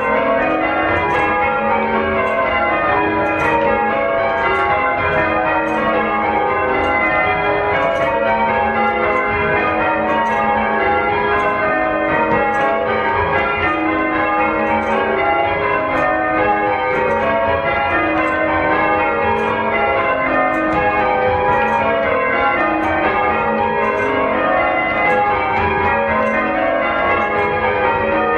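Church bells being rung one after another: a steady, evenly paced run of overlapping strikes at different pitches, each ringing on into the next.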